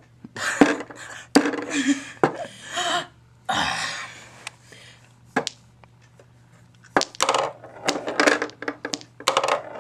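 Mini tabletop pool balls clicking sharply as the cue strikes and they knock together, a dozen or so single clicks with a quick cluster about seven seconds in, and hissy rustling between them.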